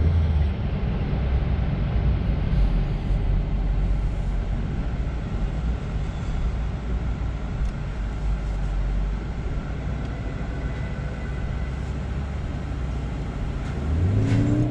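Low, steady rumble of a vehicle engine heard from inside a car's cabin. A little before the end the engine's pitch briefly rises and falls again.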